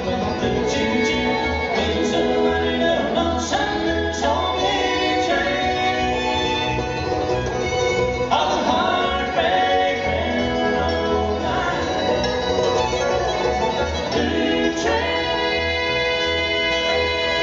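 Bluegrass band playing live: fiddle, five-string banjo, mandolin, acoustic guitar and bass together at a steady level.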